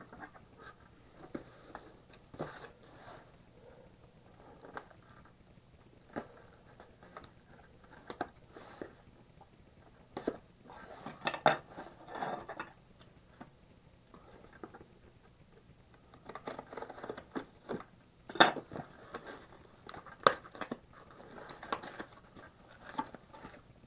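A small cardboard box being handled and opened by hand: scattered taps, scrapes and rustles of cardboard and packing tape, with a few sharp clicks, the loudest about 18 seconds in.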